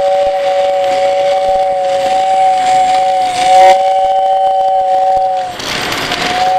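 O gauge model steam locomotive's sound-system whistle blowing a long, steady two-note chord with brief dips, breaking into short toots near the end. A rushing hiss swells under it near the end.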